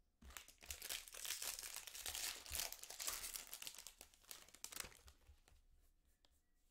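Foil wrapper of a Bowman Draft jumbo baseball card pack being torn open and crinkled. The crackling starts just after the beginning and dies away about five seconds in.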